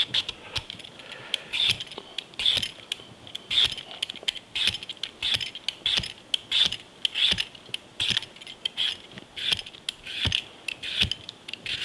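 Vegetable peeler scraping the skin off a hand-held cucumber in quick repeated strokes, about two a second.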